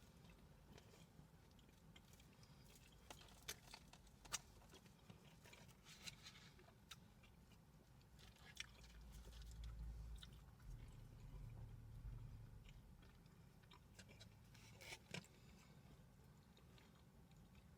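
Faint chewing of a mouthful of cheeseburger with fried pickles, with scattered soft crunches and clicks. A low rumble swells for a few seconds around the middle.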